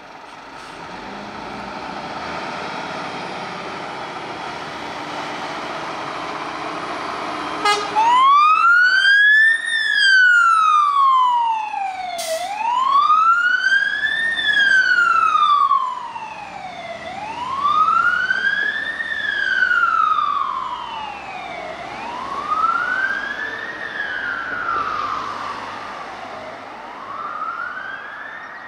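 Scania P360 fire engine's diesel engine running as it pulls out, then about eight seconds in its siren starts a slow wail. The wail rises and falls about every four and a half seconds and fades gradually as the appliance drives away.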